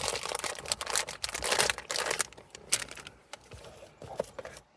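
Plastic packaging crinkling and rustling as boxed stereo parts are handled. It is dense for the first two seconds, then thins to a few scattered rustles and clicks.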